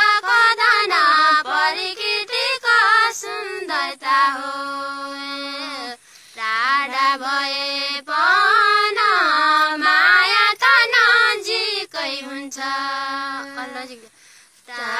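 Women singing a Nepali deuda folk song, voices only, with long held notes. The singing breaks off briefly about six seconds in and again near the end.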